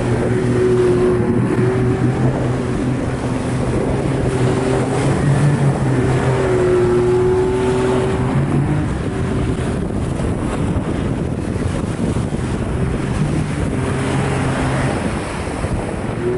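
Outboard boat motor running at speed over choppy water, its pitch dipping and then rising again about six to eight seconds in, with wind buffeting the microphone.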